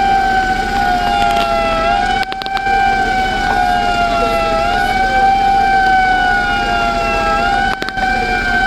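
Siren sounding without a break, its tone holding, then sliding down and jumping back up every second or two, with more than one siren tone overlapping out of step, over a steady low hum.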